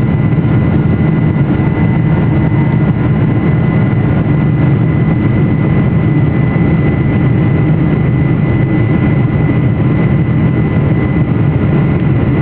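Cabin noise of a Boeing 747-400 climbing out after takeoff, heard inside the cabin by the wing: a steady, loud rumble of jet engines and airflow, with a thin steady whine above it.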